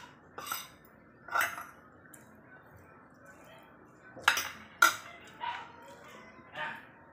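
Metal fork and spoon clinking and scraping against ceramic bowls and a plate while eating, in separate short knocks, with two sharp clinks close together between four and five seconds in.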